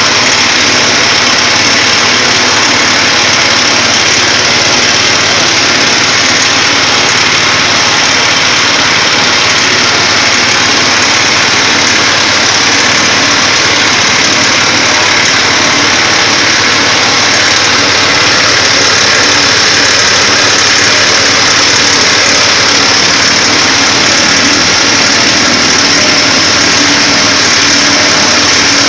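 Coconut-milk press machine running, its motor making a loud, steady mechanical drone with a bright hiss high up that does not change.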